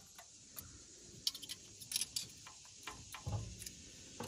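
Scattered light metallic clicks and taps of a feeler gauge being worked in and out between the rocker arms of a Detroit Diesel 6-71, checking valve lash with .011 and .013 go/no-go blades.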